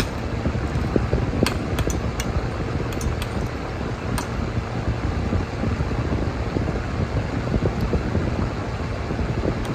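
Steady rushing noise, like a fan or air on the microphone, with a few light clinks of a metal spoon and fork against a plate, mostly between about one and a half and four seconds in.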